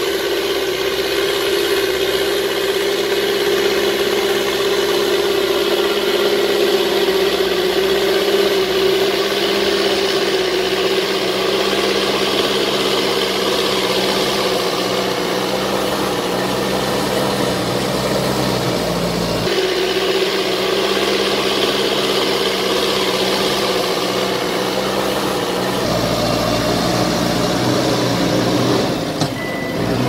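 Diesel engine of a Mahindra backhoe loader running steadily while it pushes and levels sand with its front bucket. Its engine note shifts abruptly about two-thirds of the way through and changes again near the end.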